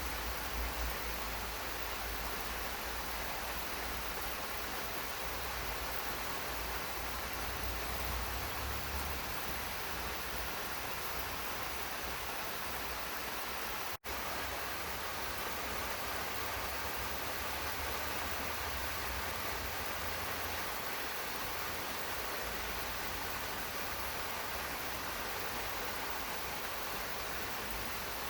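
Steady rain, a dense even hiss with an uneven low rumble underneath. The sound cuts out for a split second about halfway through.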